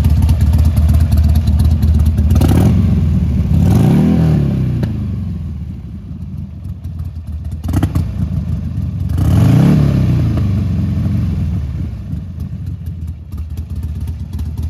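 Buell XB12S Lightning's 1203 cc V-twin idling, revved up and let fall back twice, the first rev a few seconds in and the second about halfway through.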